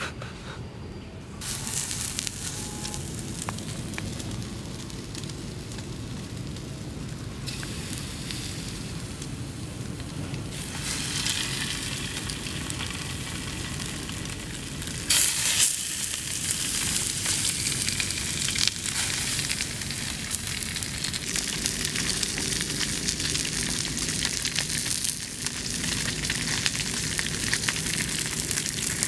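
Whole fish frying in a shallow metal pan over a wood fire: a steady, dense sizzle that sets in about a second and a half in and jumps abruptly in level a few times.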